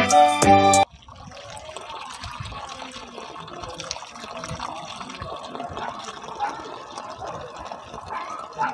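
Music that cuts off abruptly under a second in, then water running steadily from a garden hose onto the ground at the base of a young palm.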